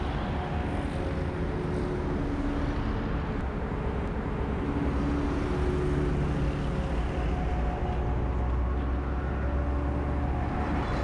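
Steady road traffic noise from cars, vans and trucks driving by on a busy highway, with engine hums that come and go, as heard from a moving bicycle.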